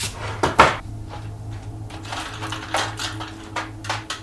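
Hands rummaging through a metal tin of sweets and lollipops: a run of small clicks and rattles of sweets against the tin, with the loudest clack about half a second in.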